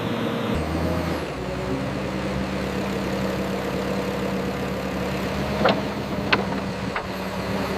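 Bulldozer's diesel engine running steadily, with three short clanks in the last few seconds.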